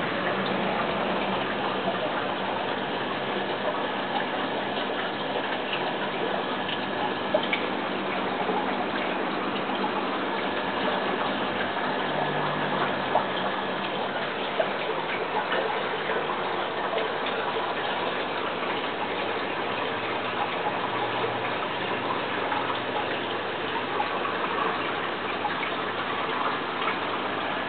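Water splashing and trickling steadily in a small fish tank, with light ticks scattered through it.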